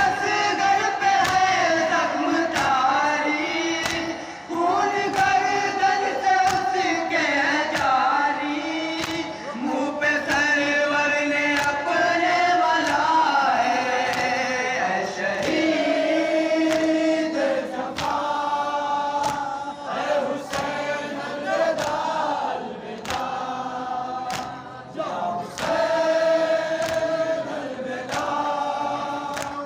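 Men chanting a noha, a Shia lament for Imam Hussain, in unison, led by a reciter on a microphone. Regular chest-beating slaps (matam) keep time under the chant.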